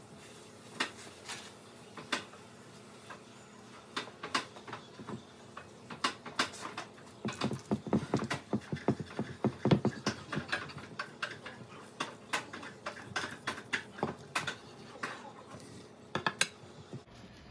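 Knife slicing a smoked brisket on a cutting board, with a string of sharp knocks and clicks as the blade meets the board. The knocks come thickest about halfway through.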